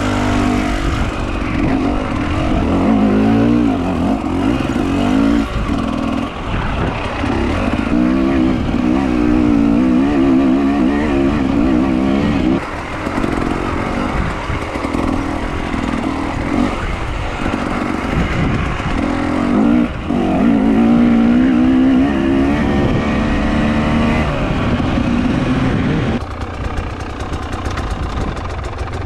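A vehicle engine running under load over rough ground, its pitch rising and falling as the revs change, with brief drops about 12 and 20 seconds in and a quieter stretch near the end.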